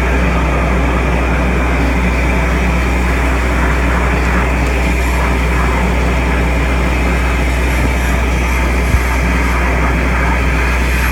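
Compact vacuum excavator running steadily at full suction, a loud even hum and rush as soil is drawn up through the hand-held suction pipe. A short low bump about nine seconds in.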